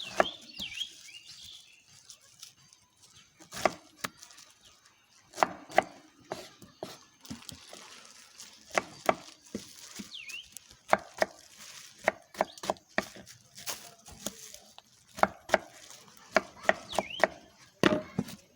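Knife cutting a pineapple on a board: irregular sharp chops and knocks coming in spells of several in quick succession.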